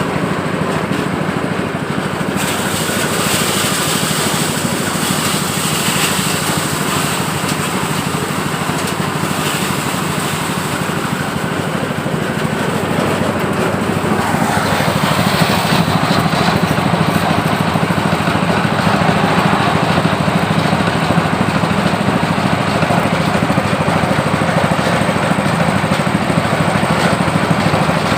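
Engine-driven blower rice thresher running steadily, its engine drone mixed with a rushing noise from the threshing drum and blower. The rushing grows about two seconds in, and the whole gets louder about halfway through.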